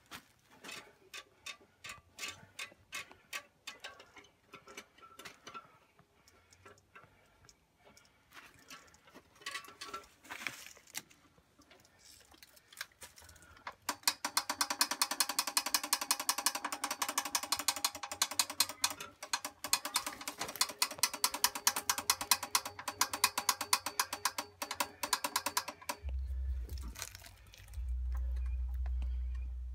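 Mechanical clicking and ratcheting from an old single-cylinder hit-and-miss diesel's working parts. The clicks are sparse and uneven at first, then become a fast, even run of clicks about halfway through, with a low rumble near the end.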